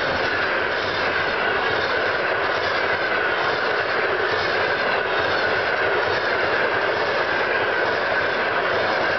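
Passenger coaches of a train rolling past at speed close by: a steady, loud rush of wheels on rail, with a steady high ringing tone above it.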